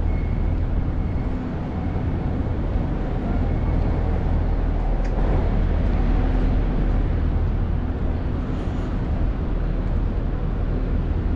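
City street traffic noise: a steady low hum of vehicle engines over general street noise.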